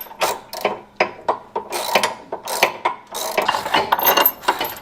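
Hand ratchet clicking in short, irregular strokes, mixed with metal clinks and knocks of tools and bolts, during work on a car's coilover suspension.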